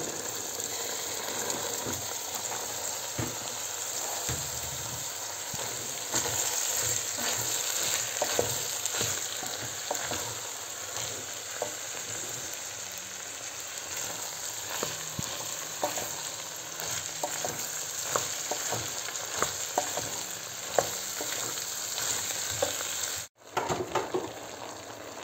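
Boiled white beans, meat and onion sizzling in oil and tomato and pepper paste in a steel pot, stirred with a wooden spoon that scrapes and knocks against the pot now and then.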